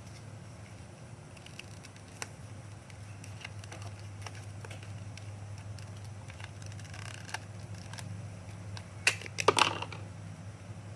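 Scattered small clicks and knocks of something being handled, with a quick run of louder clicks about nine seconds in, over a steady low hum.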